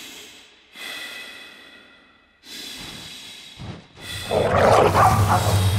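Two men running hard, breathing heavily in three long noisy breaths, then a loud strained groan of exertion from about three and a half seconds in.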